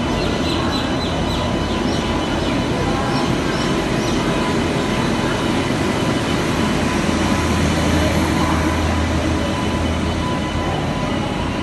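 Steady rumble and hum of a train standing at a station platform, its electric locomotive and coaches running, with a faint steady tone.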